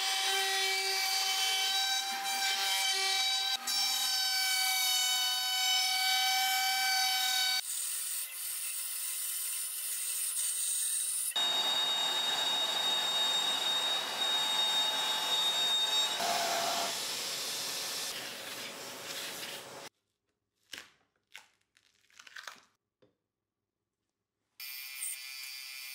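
Woodworking machines running in turn: a jointer planing a rough board, then a Shaper Origin handheld CNC router cutting with a steady high whine over the cutting noise. After the machines stop, a few short clicks, then another machine starts near the end.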